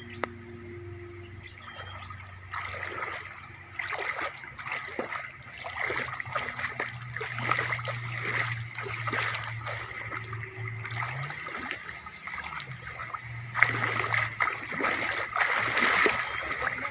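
Shallow water splashing in many irregular bursts, heaviest near the end, over a low steady hum.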